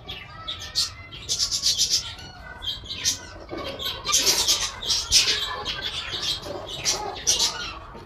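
Green ring-necked parakeet chicks squawking over and over in short, harsh, high-pitched bursts: the begging calls of hungry chicks waiting to be hand-fed.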